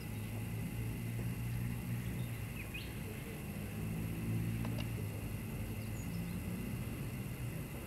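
Diesel-hydraulic shunting locomotive NB30's engine running steadily as it moves slowly through the yard, with a few short bird chirps above it.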